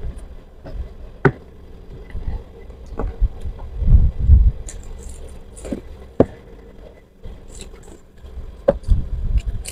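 Close-miked eating sounds: mouth smacks and chewing of fried chicken, with scattered sharp clicks and low thumps from hands handling the food, the loudest thump cluster about four seconds in.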